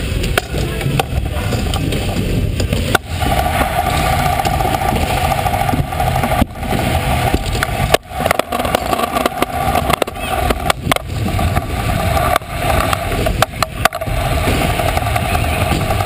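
Kick scooter wheels rolling fast over a skatepark's concrete and wooden ramps, close up: a steady rolling hum that grows stronger about three seconds in, broken by scattered sharp knocks as the wheels hit joints and ramp edges.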